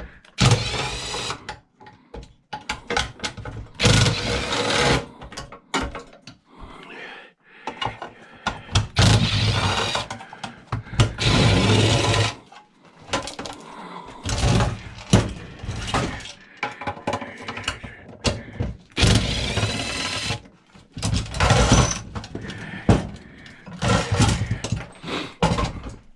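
Electric drill-driver running in many short bursts, backing screws out of a salt chlorine generator's control unit, with clicks and knocks of metal parts between the runs.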